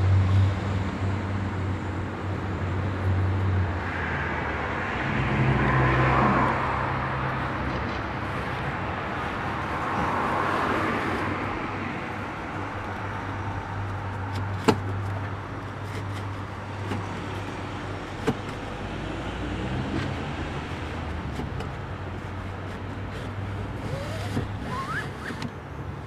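Low, steady hum of a vehicle, with swells of rustling noise and two sharp clicks from the seat belt's metal hardware being handled, a few seconds apart past the middle.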